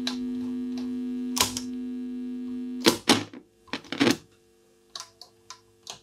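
Graetz Melodia 519 valve radio's loudspeaker giving a steady hum and no station at all: the set is deaf on medium wave. About three seconds in its piano-key push buttons click loudly, the hum mostly drops away, and a few light clicks of the controls follow.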